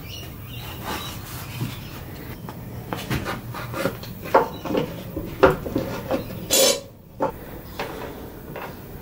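Wood and hand tools being handled on a workbench while a small block is clamped in place: an irregular run of knocks, clicks and clatters, with one brief scraping rustle about two-thirds of the way through.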